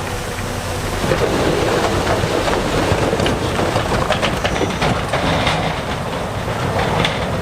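Heavy earthmoving machinery at work: a diesel engine running under a dense rattling and clanking of metal and stone that gets louder about a second in.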